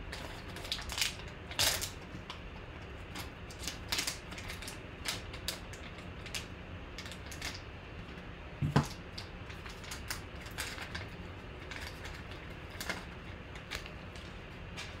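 A foil trading-card pack being torn open and its cards handled: scattered crinkles, clicks and taps, with one louder knock about nine seconds in.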